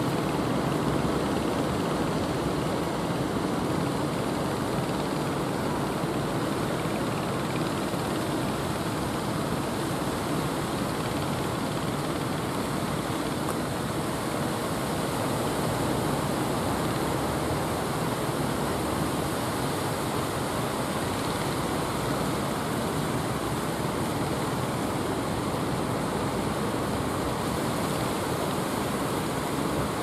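Steady rushing of ocean surf breaking along the shore.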